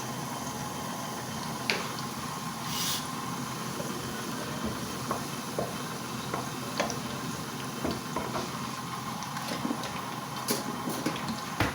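Hot cooking oil sizzling with a steady hiss in a pan, with scattered light clicks and taps of a utensil against cookware.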